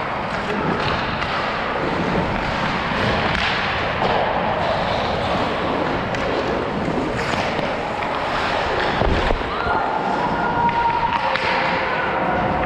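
Ice hockey skates scraping and carving on rink ice amid stick clatter, with a heavy thud about nine seconds in as the skater wearing the camera falls onto the ice.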